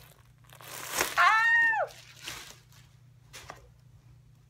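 Plastic bag crinkling as a wrapped hood is pulled from a box, then a short high-pitched excited squeal about a second in, falling in pitch at its end, followed by light rustling.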